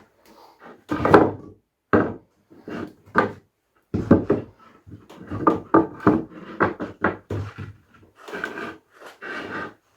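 Red oak boards knocking and clattering as they are handled and set in place, a string of irregular knocks with the loudest about a second in.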